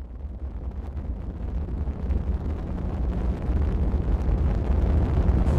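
Deep rumbling noise with a hiss above it, growing steadily louder throughout.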